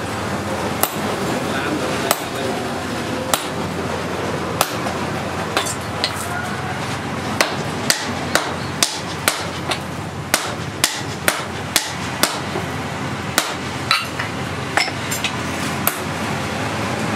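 Hand hammer striking a red-hot steel axe blank held in tongs on an anvil. The blows come singly, about one a second at first, then quicken to about two a second from about halfway, over a steady background rush.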